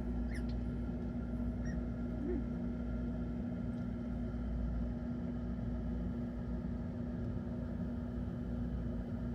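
Steady low hum with a constant drone and an underlying rumble, like a running electric appliance or fan, with a few faint short squeaks in the first couple of seconds.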